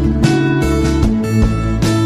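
Instrumental background music led by guitar, with notes struck about every half second over a sustained low bass.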